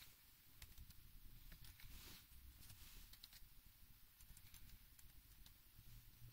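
Faint, irregular clicks of typing on a keyboard, keys pressed one after another in quick uneven runs.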